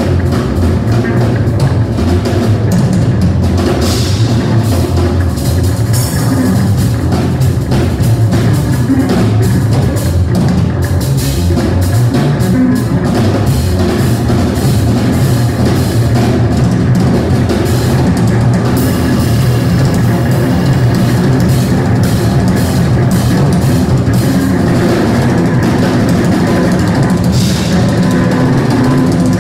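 Tenor saxophone, electric guitar and drum kit playing loud live jazz together, with busy cymbal and drum strikes and a steady bass drum underneath.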